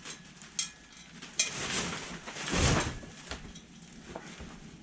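Metal clicks and light clinks as the parts of a metal drip torch are handled, with a louder rustling scrape about two and a half seconds in.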